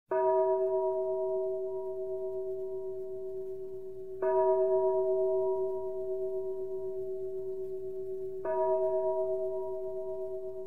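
A bell struck three times, about four seconds apart, each stroke ringing on with several steady tones and slowly fading.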